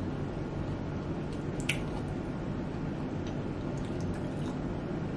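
Wet chewing and mouth sounds, with a few small soft clicks, over a steady low room hum.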